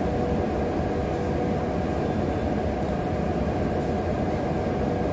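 Steady low droning background noise, even in level throughout, with a faint high-pitched whine above it.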